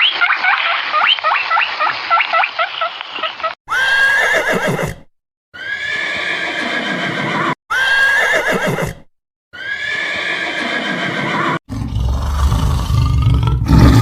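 Cut-together animal calls: quick, repeated chirping calls for the first few seconds, then four separate drawn-out calls, each about a second long and falling in pitch, then a loud, low, rough roar near the end.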